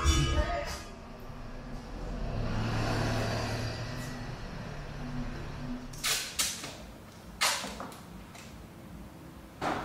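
Music cuts off in the first second, then room sound with a low rumble that swells and fades, and a few sharp knocks and clatters in the second half.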